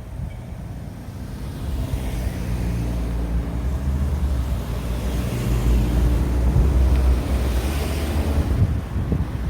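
Road traffic: a vehicle passing close by, its engine and tyre noise swelling over several seconds and dropping away near the end.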